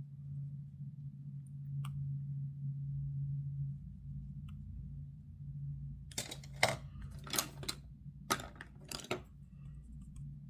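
Steady low hum with a cluster of short rustling, clattering handling noises in the second half, several strokes in about three seconds, from makeup items being handled.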